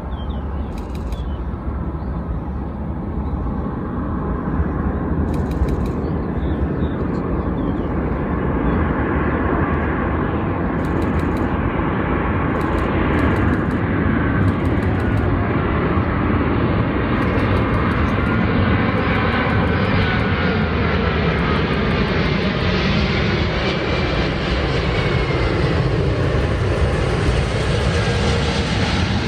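Jet airliner on approach to land passing overhead, its engine noise building steadily louder, with a whine that bends in pitch in the second half.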